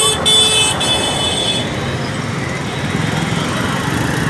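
Dense city traffic at a junction: cars, motor scooters and auto-rickshaws running and idling in a steady din. A loud, high vehicle horn sounds briefly, then again for over a second at the start, before the traffic noise carries on alone.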